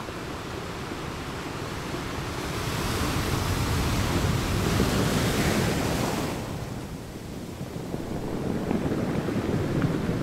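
Sea waves surging and washing in: a rushing swell that builds to a peak around the middle and falls away, then a second swell building near the end.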